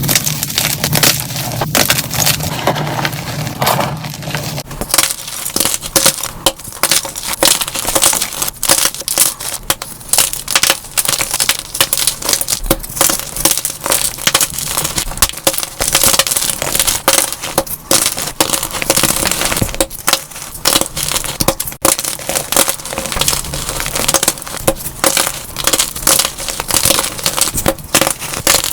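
Dyed gym chalk blocks being crushed and crumbled, a dense run of crisp crunches and crackles, sped up to double speed.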